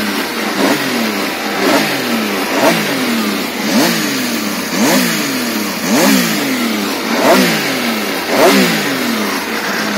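Benelli Tornado Tre 900 RS's three-cylinder engine revved in neutral while stationary. The throttle is blipped about once a second, each rev rising sharply and dropping back toward idle.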